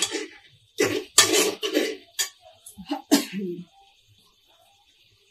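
A person coughing: a run of several harsh coughs over about three seconds, the last one drawn out like throat clearing, then stopping.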